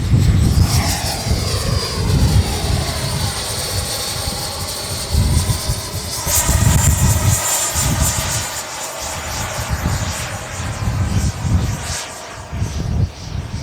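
Electric ducted-fan RC jet (Freewing Avanti S with a WeMoTec Midi Evo 80 mm fan) flying past at full power: a high whine whose pitch falls as it goes by, then a second whine cutting in about six seconds in and falling slowly away. Wind gusts rumble on the microphone throughout.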